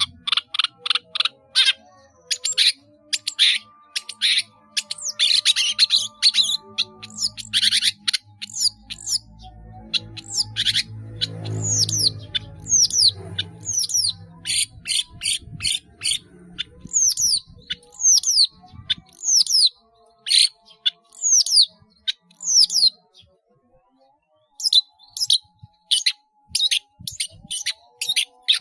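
Long-tailed shrike (cendet) in full song, running through a varied string of mimicked phrases. Rapid sharp chirps give way to a run of repeated downward-sliding whistles, about one a second. After a short pause the chirping picks up again.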